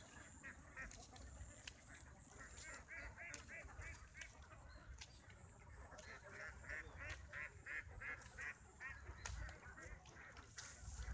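Runs of short animal calls repeated quickly, several a second, coming in bursts of a second or so, over a low rumble.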